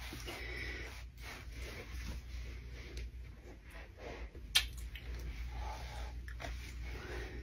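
Soft wet kissing and lip-smacking mouth sounds close to the microphone, with scattered small clicks and one sharp click about four and a half seconds in.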